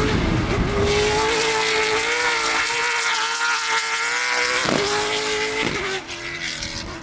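BMW V8 engine of a Rivet-built Peugeot 205 race car running hard at high revs, its note held steady, with two quick breaks in it about two-thirds of the way through, then dropping in level as the car moves away.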